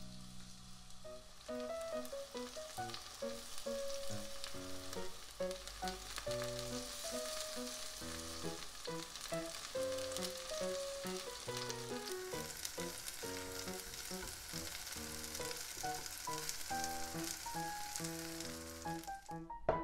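Batter-coated enoki mushrooms sizzling in hot oil in a nonstick frying pan, with background music underneath. The sizzle builds up about a second in and cuts off suddenly near the end.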